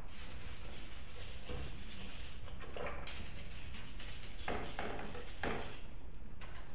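Stiff brush scrubbing a chainsaw guide bar wet with Simple Green solution: a steady scratchy hiss of brush strokes, pausing briefly about three seconds in, with a few short knocks.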